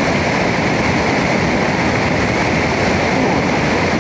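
River water pouring over a small rock cascade: a loud, steady rush of whitewater close by.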